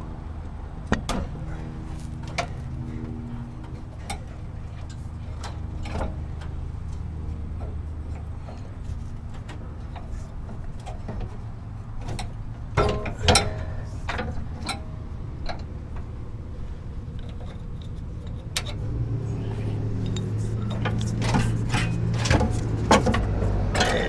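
Scattered clicks, knocks and rattles of an old parking brake cable being worked free of its metal and plastic frame clips, with a cluster of sharper knocks about halfway through. Under it runs a steady low shop hum that grows louder near the end.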